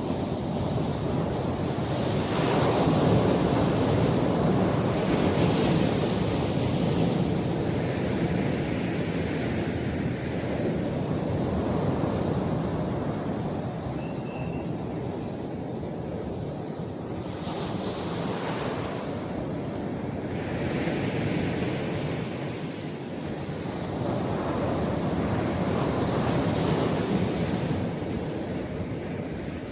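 Sea surf breaking on a beach, a steady wash that swells and eases as each wave comes in, with wind rumbling on the microphone.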